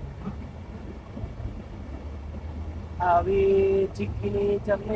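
Steady low vehicle rumble, then a voice singing long held notes in three or four phrases from about three seconds in.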